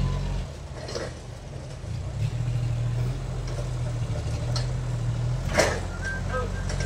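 An engine running steadily, its pitch shifting a little, with a few knocks and clanks; the loudest knock comes about two thirds of the way through.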